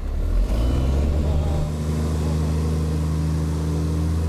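700 hp MAN truck-trial truck's diesel engine pulling away: its pitch rises over the first couple of seconds, then it runs at a steady, even note.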